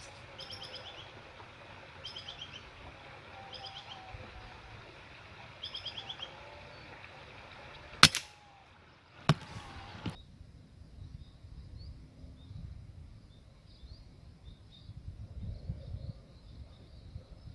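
Scoped air rifle firing: a sharp crack about eight seconds in and a fainter second crack about a second later. Before the shot, short bursts of rapid high chirping come from the canopy, and faint high chirping carries on after.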